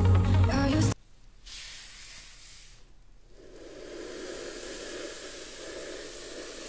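Electronic background music that cuts off abruptly about a second in, followed by a steady, fainter hiss that breaks briefly in the middle.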